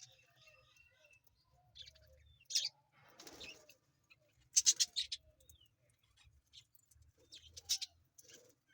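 Baby parrot giving short, shrill chirps in small clusters: one about a third of the way in, a quick run of several in the middle, and more near the end.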